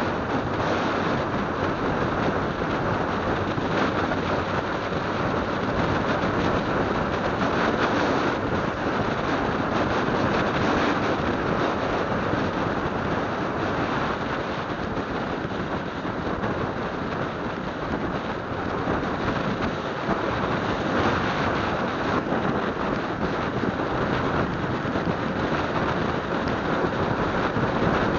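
Steady wind rush over the microphone mixed with the running engine and road noise of a Hero motorcycle cruising at speed.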